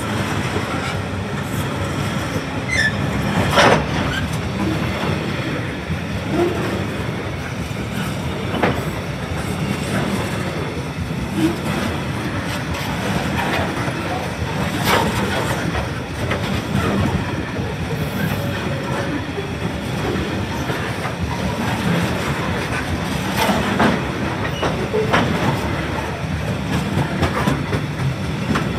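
A long train of alumina hopper wagons rolling past: a steady rumble of steel wheels on rail, with irregular sharp clicks as wheels cross rail joints.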